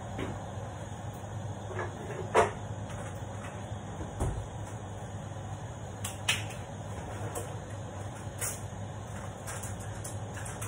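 Food cooking in a covered stainless steel pan on the stove: a steady low hum and faint hiss, with a few short sharp clicks, the loudest about two seconds in.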